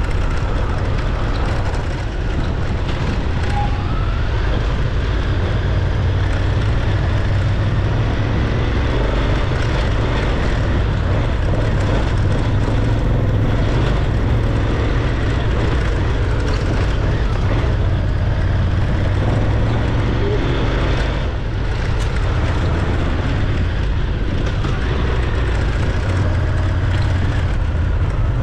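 Dual-sport motorcycle engine running steadily while riding a dirt trail, with a dense low drone and two brief dips, about two seconds in and about 21 seconds in.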